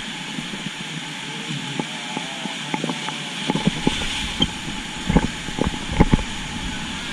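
Rushing river water, a steady hiss, with irregular knocks and thumps scattered through it, the strongest about five and six seconds in.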